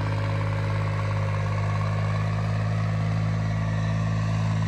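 Tractor diesel engine running steadily at constant speed while pulling a disc harrow: a freshly rebuilt engine on its test run under load.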